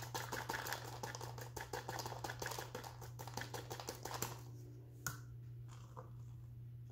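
Raisins dropping from a plastic measuring cup into a stainless steel mixing bowl: a dense patter of small ticks that thins out after about four seconds, with one sharper tap about five seconds in. A steady low hum runs underneath.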